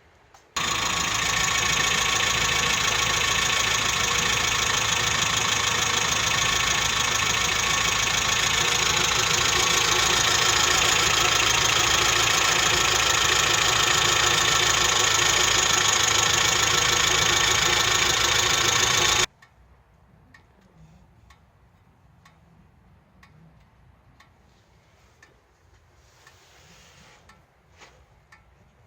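Suzuki Jimny Sierra (JB31) engine running steadily with an abnormal engine noise, starting suddenly about half a second in and cutting off suddenly after about 19 seconds. Faint scattered ticks follow.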